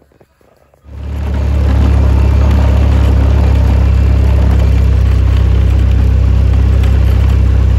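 A vehicle engine comes on about a second in and then runs steadily at an even pitch with a deep hum.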